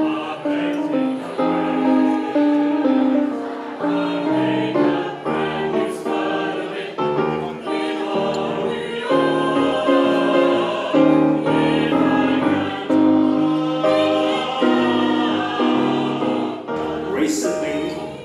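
Mixed choir singing in parts, holding long notes that change in steps.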